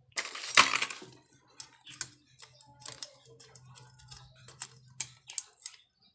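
Metal engine parts being handled and fitted: a louder rattling clatter about half a second in, then a run of small sharp clicks and taps. A low steady hum sits underneath and stops near the end.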